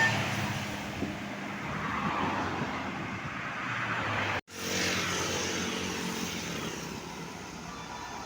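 Road traffic: the steady engine and tyre noise of vehicles on the road. The sound cuts out for an instant about four and a half seconds in.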